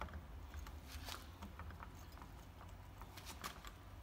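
Light metal clicks and taps of torque locker gears and cam parts being fitted together by hand inside a differential housing, in a cluster about a second in and again near the end, over a low steady hum.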